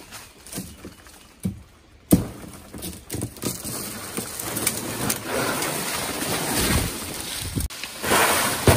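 Palm fronds rustling and scraping, with a sharp knock about two seconds in. The rustling gets louder toward the end.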